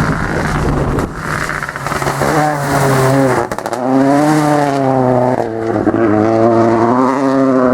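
Rally car engine at high revs, pitch rising under acceleration, dropping at gear changes and climbing again, with a short crackle at one shift about three and a half seconds in.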